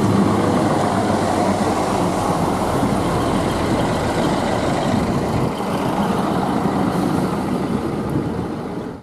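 ScotRail Class 158 diesel multiple unit running past close by: diesel engine note and wheels rumbling on the rails, steady and loud, cut off suddenly at the end.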